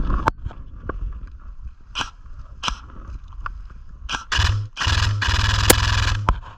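Scraping and rustling right against a body-worn camera's microphone: scattered ticks at first, then loud, continuous rasping stretches from about four seconds in.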